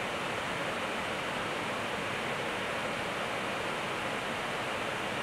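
Steady rushing noise on an Airbus A321 flight deck in flight at high altitude: airflow over the nose and windscreen mixed with the air-conditioning hiss, even and unbroken.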